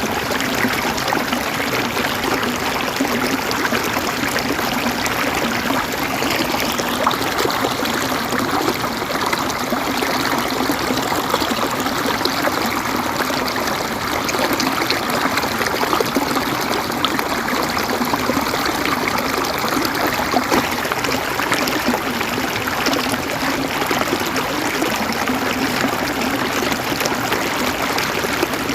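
River water running and gurgling over stones: a steady, unbroken rush.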